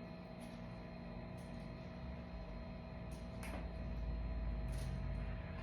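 Elbow macaroni being stirred through a mayonnaise-dressed seafood salad in a mixing bowl: a soft, low shuffling with a few light clicks of the spoon against the bowl.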